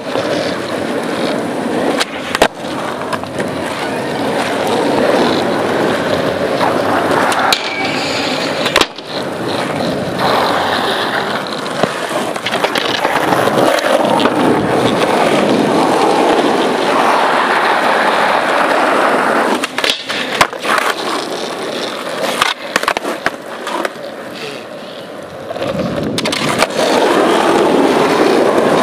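Skateboard wheels rolling on asphalt, a steady rumble that rises and falls, broken now and then by sharp clacks of the board.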